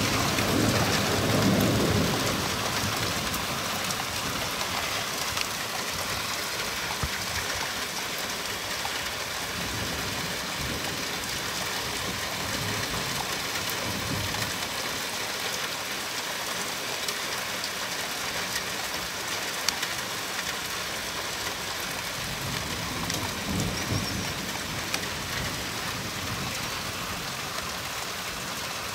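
Steady rain hissing, with low rolls of thunder: the loudest in the first couple of seconds, fainter rumbles around the middle and again later on.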